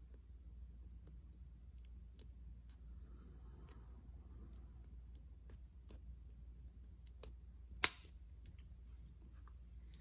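Lock pick and tension wrench working a Hypertough laminated steel padlock: faint, scattered small ticks from the pick on the pins, a light click, then one sharp, loud click about eight seconds in as the lock opens and the shackle is released.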